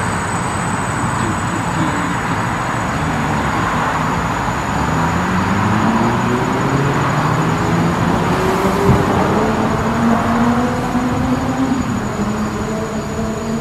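Briggs & Stratton single-cylinder engine on a Craftsman tiller running on its replacement carburetor, a steady drone whose pitch rises slowly over several seconds about halfway through and then holds.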